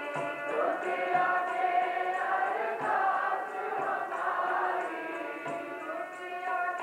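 A group of women singing Sikh kirtan together to a harmonium, with tabla accompaniment.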